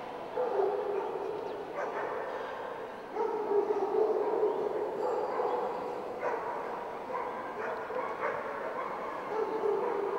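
Dogs barking and yipping, echoing in a large hall.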